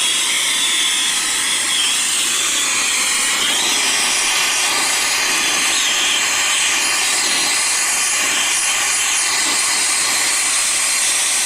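Handheld gas torch flame hissing steadily while heating a copper pipe joint for soldering.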